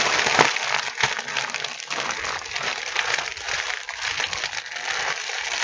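Red foil helium balloon crinkling as it is squeezed in the hands, with a steady breathy rush of helium being sucked out of its neck by mouth.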